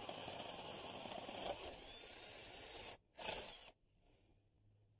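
Power drill boring a hole down through wood with a long auger bit, running steadily, then stopping about three seconds in, followed by one brief second burst.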